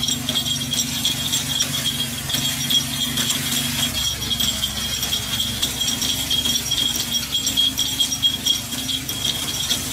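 Rapid, irregular metal clicking and rattling, typical of takoyaki picks working the balls in the pan, over a steady high whine and a low hum.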